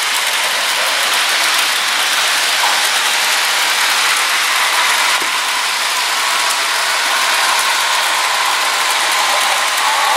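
HO scale model freight train rolling along the track: a steady fine clatter of wheels and running gear.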